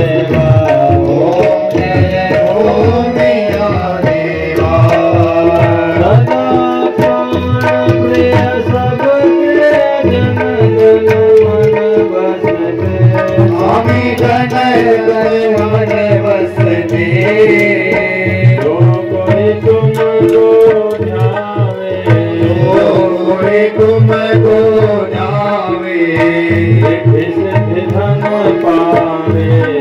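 Hindu devotional aarti music: tabla keeping a steady beat under a sung and played melody.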